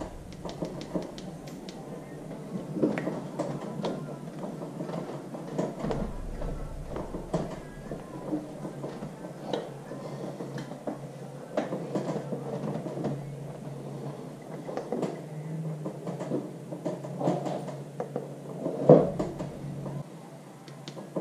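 Muffled music faintly audible from the speakers of a LEXIN LX-B2 Bluetooth helmet intercom, with scattered small clicks and a louder bump near the end as hands handle the helmet and intercom unit.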